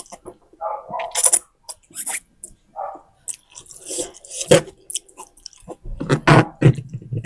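Close-miked chewing of spicy instant noodles: irregular wet smacks and clicks of the mouth, coming thicker near the end.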